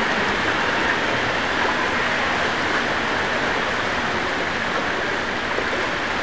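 Steady splashing and churning of pool water from several people doing water aerobics.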